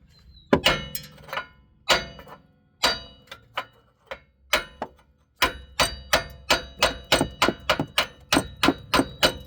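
Hammer striking metal, tapping a worn rear wheel hub loose: a few spaced blows, then from about halfway a quick, even run of light strikes, about four a second.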